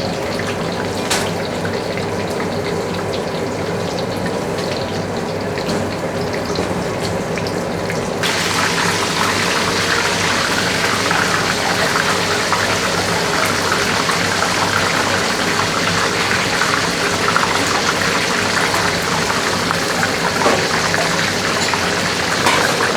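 Seafood fritter in spring-roll wrappers deep-frying in hot oil: a steady sizzle that turns suddenly louder and brighter about eight seconds in.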